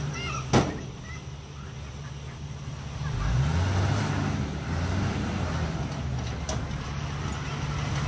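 Heavy diesel earthmoving-machine engine running steadily, picking up in pitch and loudness about three seconds in as it takes more load. One sharp knock just after the start.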